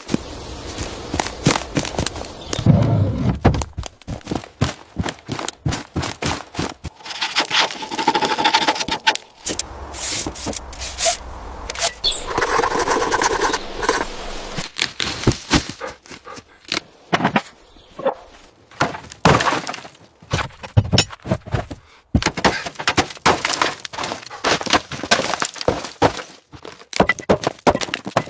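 Many sharp knocks, bangs and cracking crashes in quick succession, with three stretches of steady rushing noise, each lasting a second or two.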